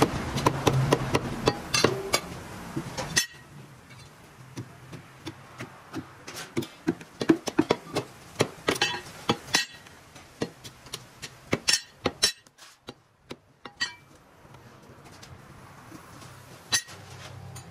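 Meat cleaver chopping mutton on a wooden chopping block: a long, irregular series of sharp chops, some in quick runs. A steady low hum sits under the first three seconds and stops suddenly about three seconds in.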